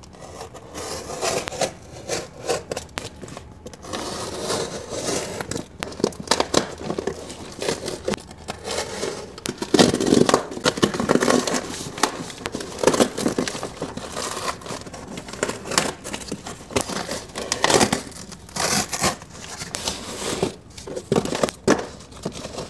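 A taped cardboard parcel being cut and torn open by hand: irregular tearing, scraping and crinkling of cardboard, paper wrapping and packing tape, loudest about halfway through.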